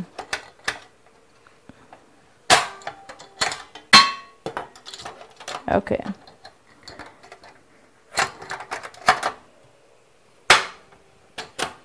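Portable gas stove being worked: repeated sharp clicks from its knob and igniter at irregular intervals, the stove failing to light.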